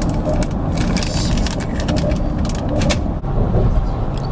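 Steady road and engine rumble inside a moving car's cabin, with a quick run of sharp clicks and rustles over the first three seconds.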